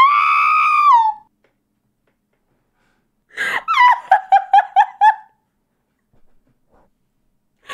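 A person's high-pitched wheezing laughter: one held squeal of about a second, then after a pause a run of quick gasping laugh pulses, about four a second.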